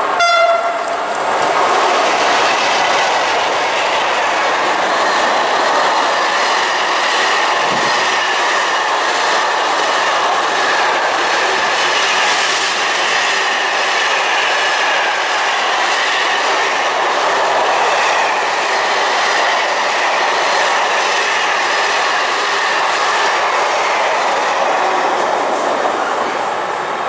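Freight train of empty container flat wagons passing through at speed: a horn blast cuts off in the first half second, then the wheels clatter and rumble over the rails steadily for about 25 seconds, easing near the end.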